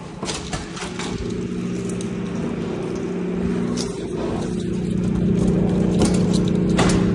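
Keys jangling and clicking against a door lock, over a steady machine hum with several tones that grows louder about halfway through.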